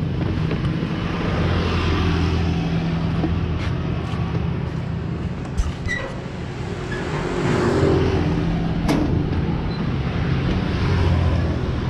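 Honda Scoopy motor scooter's single-cylinder engine running at idle, a steady low hum, while vehicles pass on the street and swell and fade a few times. A couple of sharp clicks sound near the middle.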